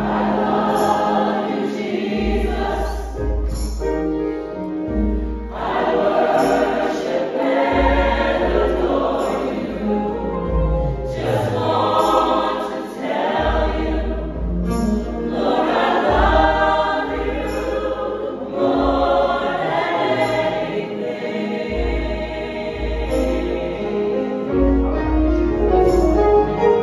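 Mixed-voice gospel choir singing a slow song in parts, phrases swelling and breaking off every few seconds.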